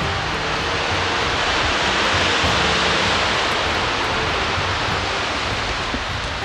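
Wind-driven rain of a thunderstorm squall line: a steady hissing downpour that swells about two seconds in.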